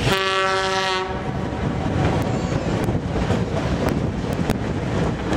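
Horn blast of about a second from a narrow-gauge diesel locomotive, one steady chord-like tone that cuts off. After it comes the steady rumble of the open passenger car rolling on the rails, with scattered clacks from the track.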